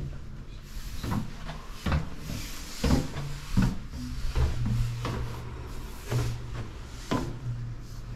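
Footsteps on stone stairs in a narrow stairwell, about one knock every second, over a low hum.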